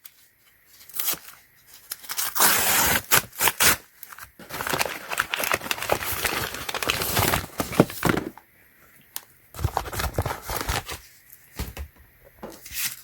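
Product packaging being torn open, with crinkling: two long tearing stretches in the first half, then scattered small clicks and handling noises.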